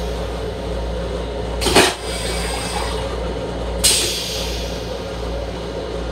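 M7 railcar toilet flushing: a short, sharp whoosh about two seconds in and a hissing burst of rinse water about four seconds in that fades away, over the steady low rumble of the railcar.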